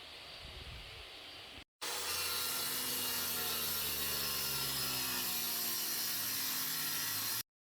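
A power tool working on lumber: a quieter stretch, then after a brief gap a louder, steady run of about five seconds that stops suddenly.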